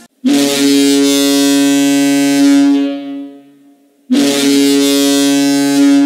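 Ice hockey arena goal horn sounding two long, loud, steady blasts, the first about three seconds and the second about two, with a short pause between.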